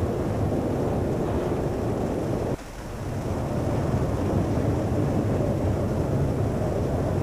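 Strong wind blowing hard across the microphone, a deep, steady rumble of the kind heard in a tornado's core. The noise drops suddenly about two and a half seconds in and builds back within a second or so.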